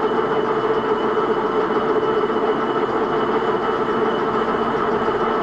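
Metal lathe running steadily: a constant machine drone with a few steady tones from the motor and gear train.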